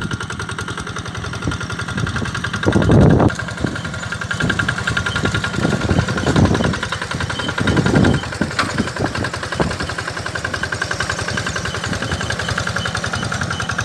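A small engine idling with an even, fast putter, swelling louder a few times.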